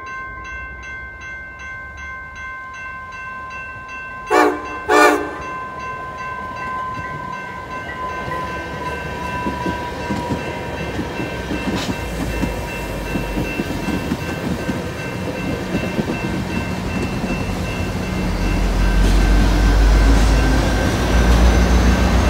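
Grade-crossing warning bell ringing rapidly. About four seconds in, a Northstar commuter train's horn gives two short blasts. Then the train's rumble and wheel noise build as it rolls through the crossing, loudest near the end.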